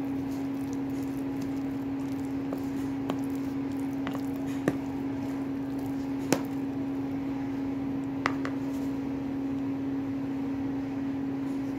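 Thick fish ball batter of tuna, flour, carrot and green onion being stirred and folded with a silicone spatula in a plastic bowl: wet squishing, with a few sharp clicks of the spatula against the bowl. A steady low hum runs underneath.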